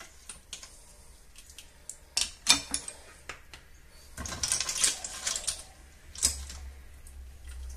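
A serving utensil knocking and scraping in a stainless steel pot, and clam shells clinking into a plate, as lentils with clams are dished up: scattered clinks, busiest about halfway through.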